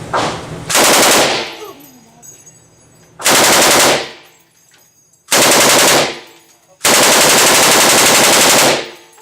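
M249 light machine gun (5.56 mm, belt-fed) firing four bursts of automatic fire, very loud. The first three are short and the last runs about two seconds.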